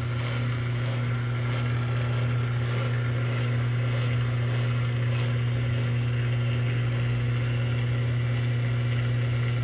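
Electrolux Essencial Care LES13 washing machine running with a loud, steady, low hum that holds unchanged.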